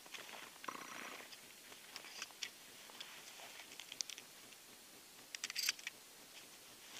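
Faint footsteps crunching in snow and clothing rustle, then a short cluster of small clicks about five and a half seconds in as a man handles a slung shotgun.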